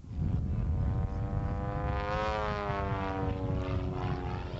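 Laser Z200 aerobatic monoplane flying overhead: its engine and propeller drone climbs in pitch and then sinks again over about two seconds in the middle, over a heavy low rumble.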